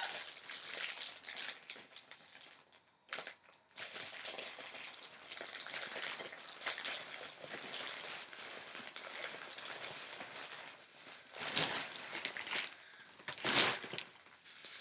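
A plastic bag crinkling and rustling as it is pulled off a reborn baby doll's head. It goes in bouts, with a short pause about two seconds in and two louder crackles near the end.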